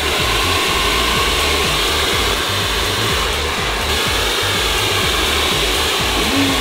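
Handheld hair dryer running steadily, a continuous rushing blow of air directed at hair as it is combed upward.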